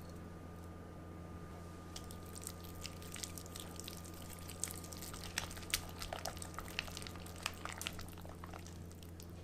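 Balloon whisk beating softened cream cheese in a glass bowl: a run of quick, wet clicks and squelches that starts about two seconds in and is busiest in the second half, over a steady low hum.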